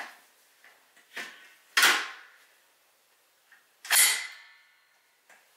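Sharp metal clacks from the receiver of a Barrett M82A1 .50-calibre rifle as its bolt is worked: a light click, then two loud clacks about two seconds apart, the second ringing briefly.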